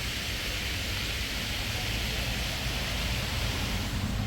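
Steady outdoor background hiss with a low rumble underneath, even throughout.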